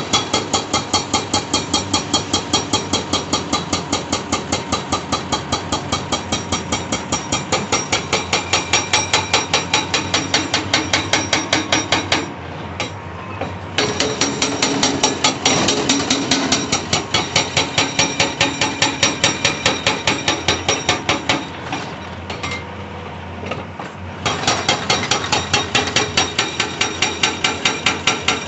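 Hydraulic breaker on a CAT 349E excavator hammering rock in rapid, evenly spaced blows. It stops twice for a second or two, leaving the excavator's diesel engine running, then starts hammering again.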